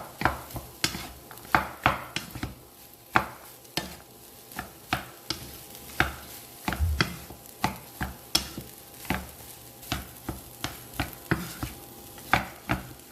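A spatula or spoon stirring and scraping rice and vegetables in a pan, with irregular knocks and scrapes a few times a second over a faint sizzle.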